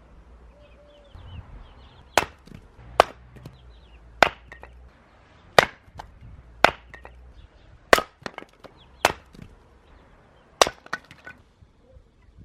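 A forged hatchet chopping into wood: eight sharp blows, roughly one a second, each followed by a short rattle of the wood.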